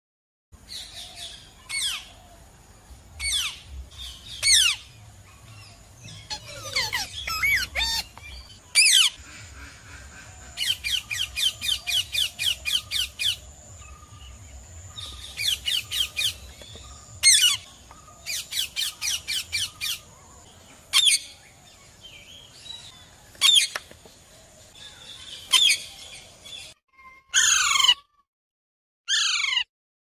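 Rose-ringed parakeet squawking and screeching: harsh single calls and quick runs of several calls a second, with short pauses between, and a few downward-sliding calls near the end.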